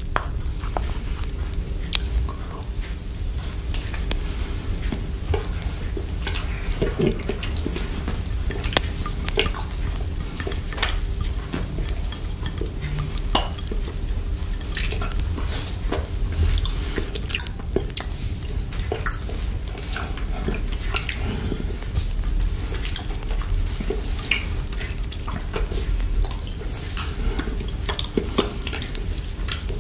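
Close-miked wet mouth sounds: licking and sucking on a chocolate lollipop coated in whipped cream, full of small sticky clicks and smacks, with the lollipop stirred in whipped cream in a plastic bowl. Underneath runs a steady crackling fire sound with a low rumble.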